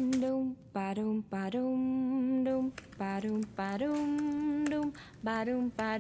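A woman's voice humming a slow, wordless tune in long held notes, with short notes between them, as background music.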